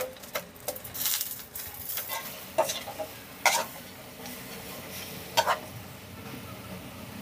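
Metal spatula and frying basket clinking and scraping against a wok several times as fried sweet potato wedges are tossed in caramelized sugar, over a faint steady sizzle of the bubbling sugar.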